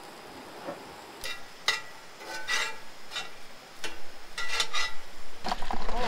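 Knocks, clatter and rustling as containers and packages in a truck bed are rummaged through by hand. Under them is the faint steady sizzle of onions frying in a pan on a camp stove.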